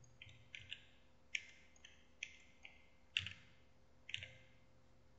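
Computer mouse clicking: about eight faint, sharp clicks at irregular intervals.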